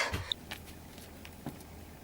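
Quiet room tone: a low steady hum with a few faint short clicks.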